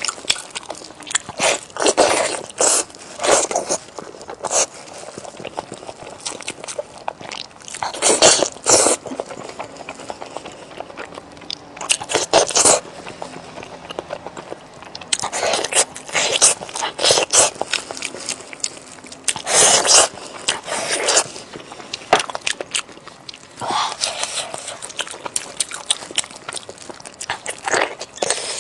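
A person biting and chewing steamed chicken, in irregular clusters of sounds that each last about a second.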